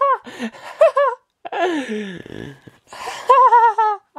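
A person's voice laughing "ha ha ha" in several short bursts, with one long falling laugh in the middle and a quick run of "ha"s near the end; it is the comic's printed laughter acted out while reading aloud.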